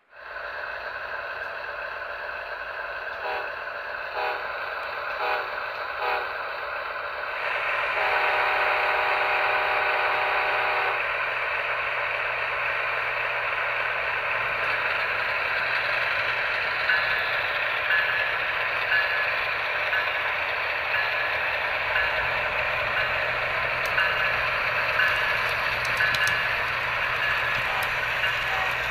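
Model train running along its track with the camera riding on it: a steady clattering rumble of wheels and motor. A held chord sounds for about three seconds near a third of the way in, and short, evenly repeating beeps come through in the second half.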